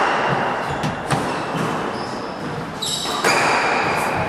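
Squash rally: the ball is struck by rackets and smacks off the court walls in a few sharp hits that echo in the hall, with players' shoes squeaking on the wooden floor.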